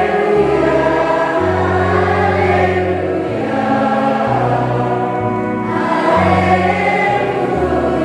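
Children's choir singing a hymn to electronic keyboard accompaniment, the held bass notes changing every second or so.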